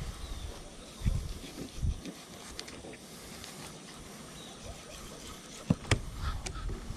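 Fillet knife and hands working a flounder on a wooden cutting board: soft handling and cutting noises with low thumps about one and two seconds in, and two sharp clicks close together about six seconds in.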